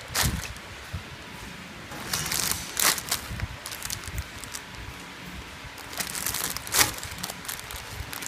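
Clear plastic flow-wrap film on packed bags of leafy vegetables crinkling as the bags are handled, in three crackly bursts: just after the start, around two to three seconds in, and around six to seven seconds in. A faint steady hum runs underneath.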